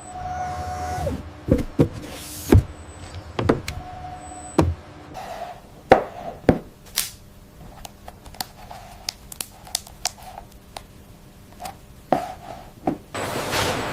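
Factory machinery clattering: a series of irregular knocks and clicks over a faint steady hum, with a loud hiss starting near the end.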